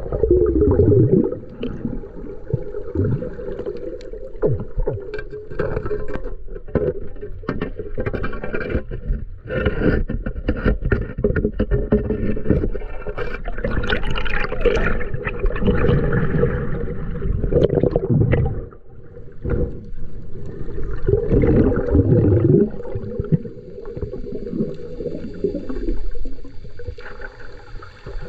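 Muffled underwater noise picked up by a camera beneath the surface, with gurgling bubbles from divers now and then, loudest about a second in, at around sixteen seconds and at around twenty-two seconds.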